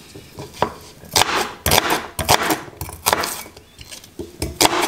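Cleaver chopping a red onion on a wooden cutting board: a series of sharp knocks as the blade goes through the onion and strikes the board, irregularly spaced, about two or three a second.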